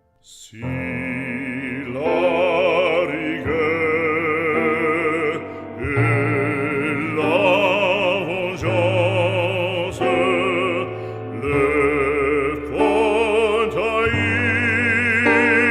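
Operatic singing with a wide vibrato over classical accompaniment, long held notes changing every second or two.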